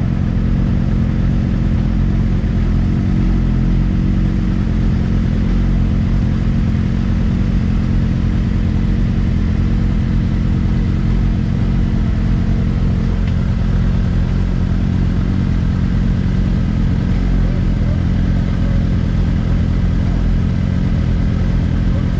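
A vehicle engine running steadily at an even pitch, with no revving.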